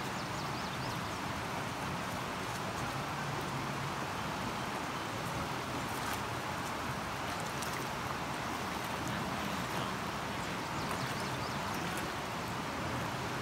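Steady rushing of a creek flowing over rocks, with a few faint light splashes.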